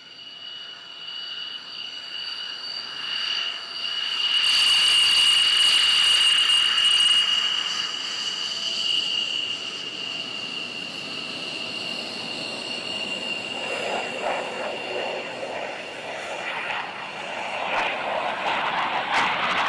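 Fighter jet engine noise: a steady high whine over jet roar swells about four seconds in. From about fourteen seconds the rougher, fuller roar of an F-35 Lightning II builds as it rolls down the runway.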